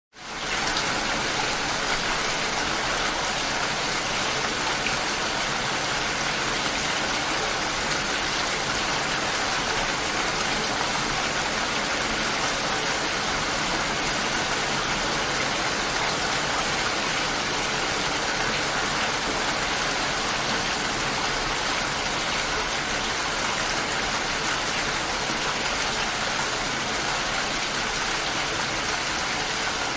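Steady light rain falling, an even hiss with no thunder, fading in over the first half second.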